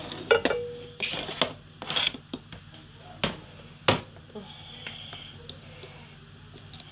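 Cooked cow foot and meat with stock tipped from a plastic bowl into a metal pot: a few sharp knocks and clatters of the bowl and meat pieces against the pot in the first four seconds, then softer sliding and sloshing.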